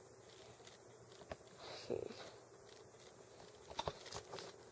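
Faint clicks and rubbing of hands handling a small Kodak digital camera close to its own microphone, with a soft thud about two seconds in, over quiet room tone.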